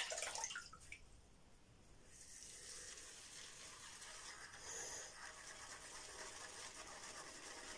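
Faint, steady hiss of running water starting about two seconds in, after a brief rustle at the start.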